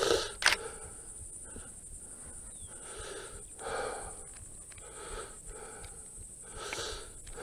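A man breathing hard from a steady uphill walk, a heavy breath about every second.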